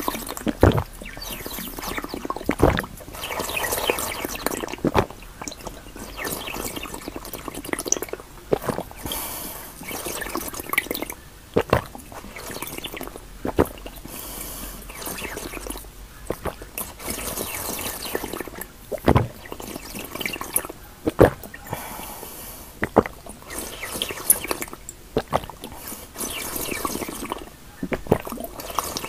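Close-miked drinking from a glass vessel: sipping and slurping liquid, broken by short, sharp gulps and clicks every few seconds.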